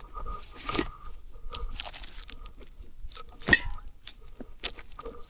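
Camping cookware and a small gas stove being handled and unpacked: scattered clicks, knocks and rustling, with one sharp knock about three and a half seconds in.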